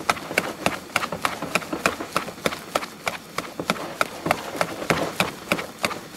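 Wire whisk beating mashed potatoes by hand in a metal bowl, its wires clicking and scraping against the bowl in a steady rhythm of about four strokes a second.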